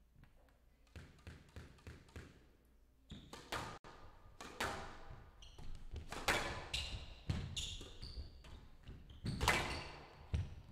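Squash rally: the ball struck by racquets and smacking off the walls of a glass court, irregular sharp hits with a ringing echo, the loudest about nine and a half seconds in. Short high squeaks of shoes on the court floor come between the hits.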